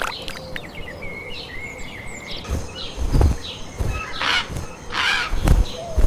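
Several birds chirping and calling in quick, short, repeated notes. From about halfway through, low thuds and rustling noise join in.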